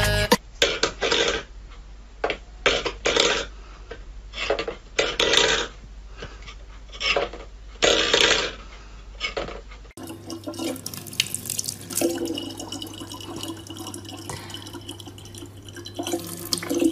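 Metal pet bowls clattering and scraping on a wooden floor in irregular bursts. After about ten seconds, water running from a tap into a plastic bottle over a steady hum.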